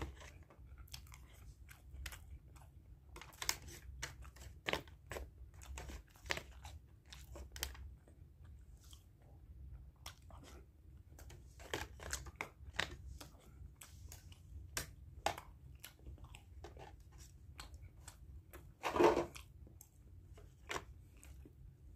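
A person eating close to the microphone: chewing and crunching mouthfuls, with a plastic fork and spoon clicking and scraping in plastic and foil takeaway containers. There is one louder, half-second clatter near the end.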